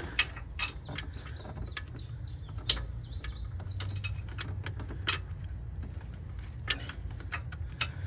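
Irregular metallic clicks and clinks from a tool and loosened parts being handled in an engine bay, about one or two a second, over a low steady rumble.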